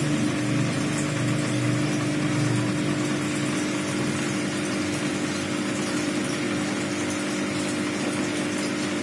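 Aquarium pump running with a steady hum and hiss.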